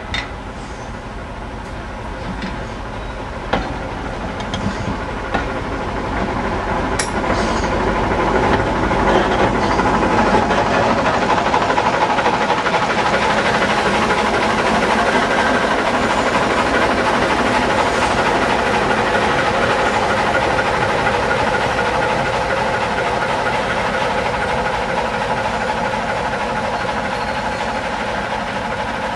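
Passenger coaches rolling slowly past, with a few sharp knocks from the wheels over rail joints. From about eight seconds in, the diesel engine of the Class 07 shunter D2994 grows louder and runs steadily as the locomotive draws near.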